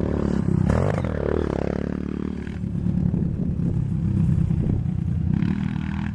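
Honda CRF230 dirt bike's single-cylinder four-stroke engine being ridden, revving up and down in the first couple of seconds, then running steadier.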